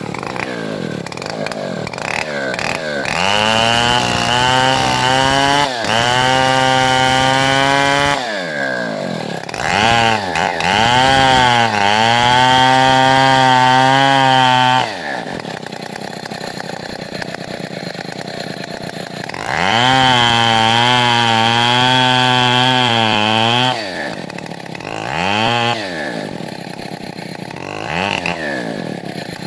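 Stihl 070 two-stroke chainsaw idling and revving up to full throttle three times, for several seconds each, dropping back to idle between. Two short blips of throttle come near the end.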